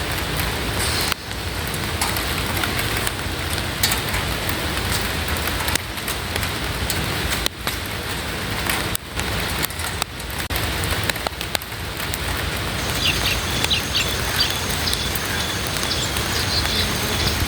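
Steady rain falling, an even hiss with brief dips in level, and a few short high bird chirps near the end.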